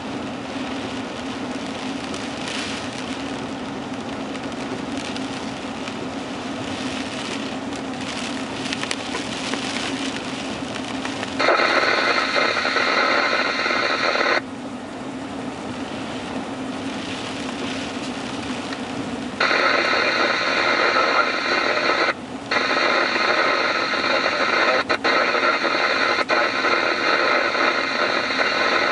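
Scanner radio receiving an open channel with no voice: a steady hiss over a low hum, then louder static with steady tones for about three seconds a third of the way in, and again from about two-thirds in, cutting out briefly once.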